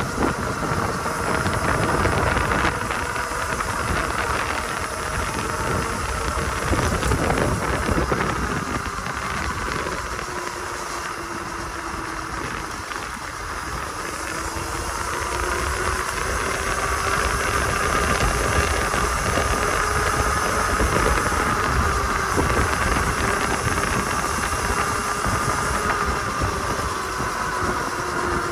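Electric dirt bike's motor whining as it is ridden, its pitch sinking and rising slowly with speed, over a steady rushing hiss and low wind rumble.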